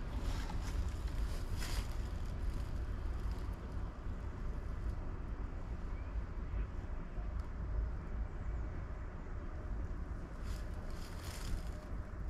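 Outdoor ambience: a steady low rumble of distant road traffic with wind on the microphone, and brief rustling bursts about a second in and again near the end.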